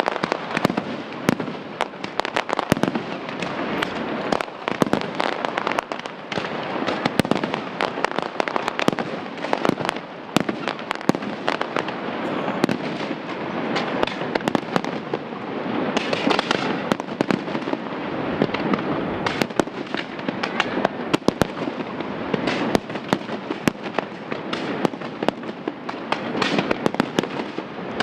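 Fireworks display: aerial shells bursting one after another in a continuous barrage, many sharp bangs a second over an unbroken crackle.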